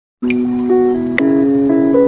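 Short intro music of held melodic notes that step to a new pitch every half second or so, with bright sharp accents on top; it starts just after the beginning.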